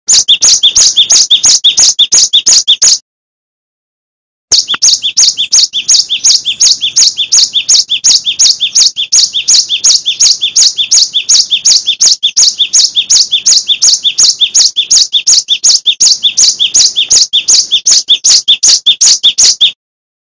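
Cinereous tit (gelatik batu) singing a fast, even run of high repeated notes, about five a second. The song cuts off abruptly about three seconds in, starts again a second and a half later and runs on until it stops shortly before the end.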